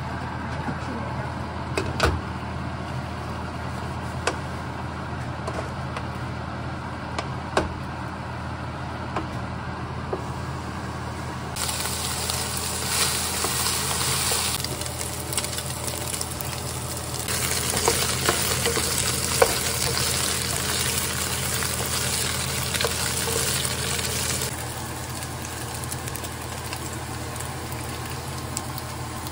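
Diced meat frying in a nonstick pan over a steady low hum, with a few light knocks early on. The sizzle grows loud through the middle stretch as the meat is stirred with a wooden spoon, then drops back.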